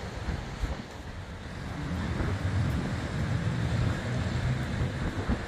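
Storm wind buffeting the phone's microphone, a low irregular rumble that swells from about two seconds in, over a steady hiss of rain and wet-road traffic.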